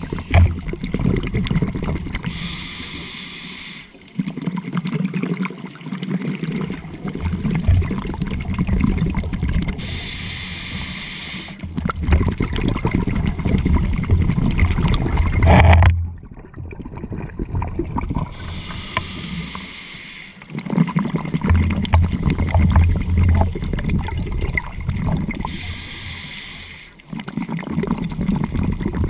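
Scuba diver breathing through a regulator, recorded underwater. Four short hissing inhalations come about every eight seconds, each followed by a long gurgling stream of exhaled bubbles.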